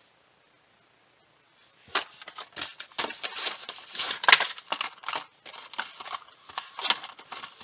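Rapid, irregular clicking and crackling that starts about two seconds in and keeps going.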